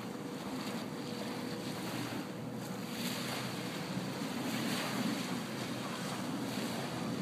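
Wind on the microphone, a steady rumbling noise, over small waves washing onto a sandy beach.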